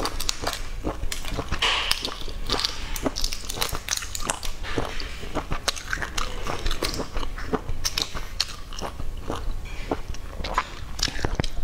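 Eggshells crackling and snapping as boiled eggs are cracked and peeled by hand, close-miked: a dense run of many small sharp clicks. Chewing sounds are mixed in.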